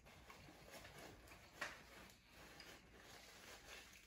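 Faint eating sounds from a foil freeze-dried meal pouch: a spoon working in the pouch and the pouch rustling, with chewing. There are a few small clicks, the sharpest about one and a half seconds in.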